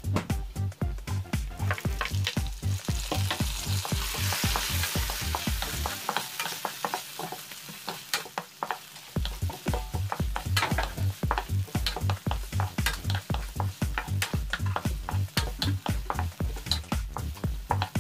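Garlic and then sliced red onions sizzling in oil in a non-stick wok, stirred with a wooden spatula that scrapes and taps the pan; the sizzling swells a few seconds in as the onions go in. A steady background music beat runs underneath and drops out for a few seconds in the middle.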